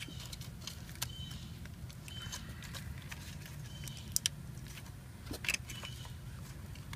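Handling noise: scattered faint clicks and rustles of hands working a plastic wiring connector and its harness, over a low steady rumble, with a sharp double click a little past the middle.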